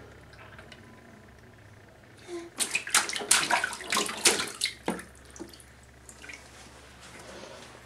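A baby slapping the bathwater in a plastic baby tub with her hands: a quick run of splashes lasting about two and a half seconds, starting a couple of seconds in.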